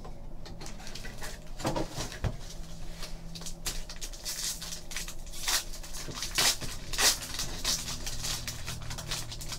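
Crinkling and tearing of a foil trading-card pack wrapper being pulled open by hand, with the card stack inside rustling. It comes as a string of short, irregular crackles.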